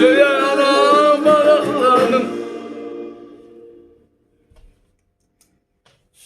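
A voice singing the last line of a Turkish regional folk song with a wavering, ornamented pitch over instrumental backing; the song ends about two seconds in, and the held accompaniment notes fade away by about four seconds. Then near silence, broken by a few faint clicks and a brief soft burst at the very end.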